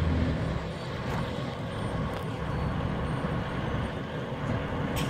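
Diesel engine running steadily at low revs.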